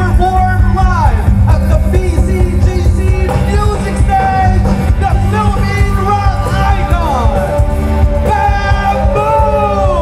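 Live rock band playing through a concert PA, heard from within the crowd: a singer holds long notes that slide down at the ends, over heavy, steady bass and drums.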